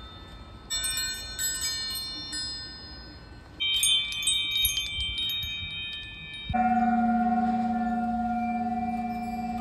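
Wind chimes ringing in turn: first a bright, high tinkling of quick strikes, then about three and a half seconds in a metal tube wind chime ringing several struck tones, and about six and a half seconds in a single strike on a large cylindrical metal bell chime that rings on long and low.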